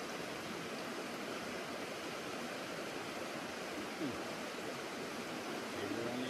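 Small mountain trout creek running steadily over a shallow riffle, a continuous rushing of water. A single short thump rises above it about four seconds in.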